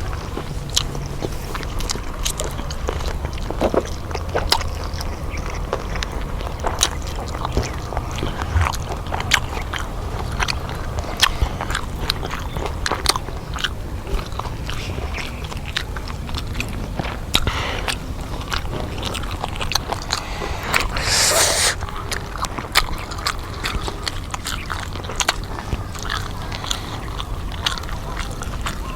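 Close-up crunching and chewing of crispy deep-fried chicken: irregular sharp crackles of biting into the breaded crust, with one louder burst of crackling about two-thirds of the way through.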